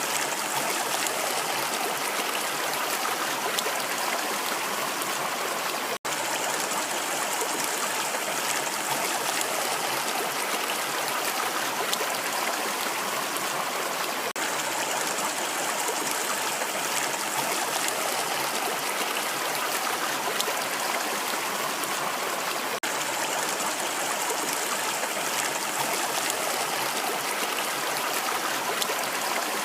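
Water rushing in a steady, even flow, like a stream, with a momentary dropout about six seconds in.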